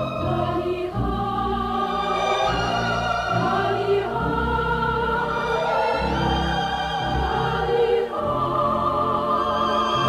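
Orchestral film-soundtrack music with voices singing long held notes with vibrato, sounding like a choir.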